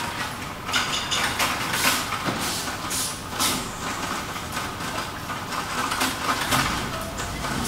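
Workshop machinery noise: a steady mechanical hum with irregular clicks and clatter.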